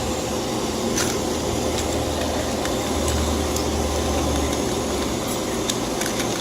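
Steady mechanical hum and noise with a faint steady tone in it, and a few light clicks and taps scattered through, about a second in and again near the end.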